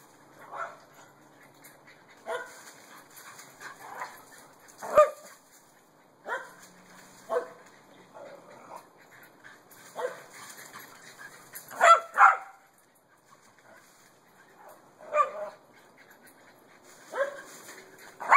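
Dogs barking: about a dozen short single barks at irregular gaps of one to two seconds, with a quick double bark near the middle.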